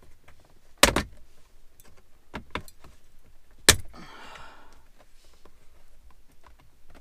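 2018 Jeep Wrangler JL centre dash bezel being pulled off by hand, its plastic retaining clips snapping loose: two loud sharp snaps, about a second in and near four seconds in, with lighter clicks between and a brief rustle of plastic just after the second snap.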